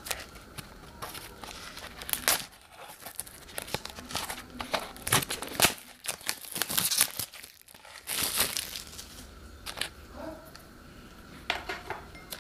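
Plastic packaging of an Omachi instant noodle cup crinkling and tearing as it is unwrapped and its lid peeled back: irregular crackles, busiest and loudest in a stretch of rustling in the middle.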